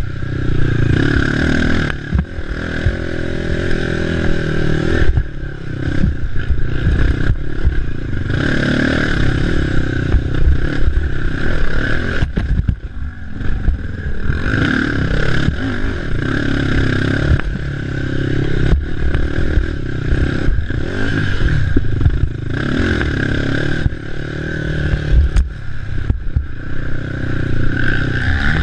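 Racing ATV's engine revving up and down as it is ridden hard, easing off briefly now and then, with constant rattling and knocks from the machine over rough ground.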